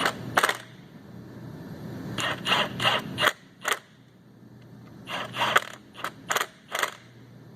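Hand ratchet wrench clicking in several short bursts of strokes as bolts on a diesel engine's rear seal housing are run down.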